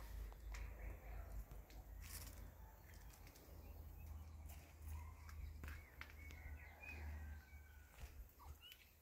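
Faint short, high, pitched calls from a small animal, a few of them between about five and seven seconds in and another near the end, over a low steady rumble.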